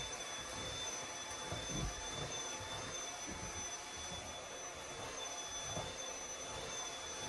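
Household appliance motor running steadily: a high whine over a rushing noise.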